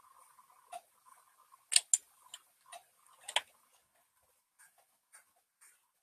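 Irregular clunky clicks and taps from working at the computer while painting, about nine in all, the loudest a close pair about two seconds in and another just after three seconds in.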